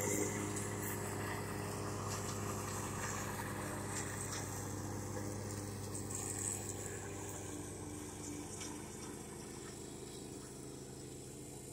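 A motor running with a steady low hum and a faint, evenly pulsing tone, slowly getting quieter in the second half.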